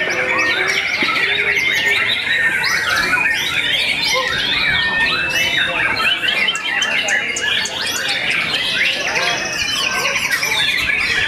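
Caged white-rumped shamas (murai batu) singing together: a dense, unbroken chorus of rapid, varied whistles, trills and chattering notes from several birds at once.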